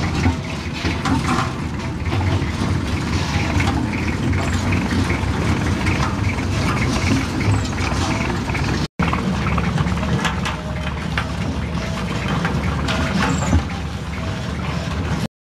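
Road roller's engine running steadily with a low rumble; the sound cuts out for an instant about nine seconds in.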